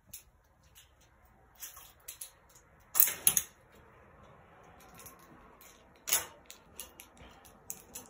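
Irregular sharp clicks and taps from a fishing rod and reel being handled. The loudest are a quick pair about three seconds in and another about six seconds in. No toilet flush is heard.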